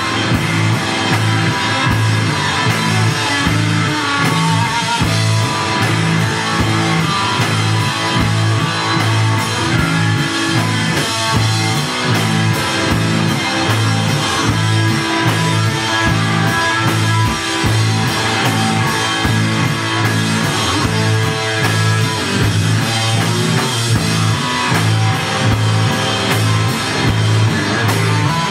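A rock band playing live: loud electric guitar, bass and a drum kit, dense and unbroken.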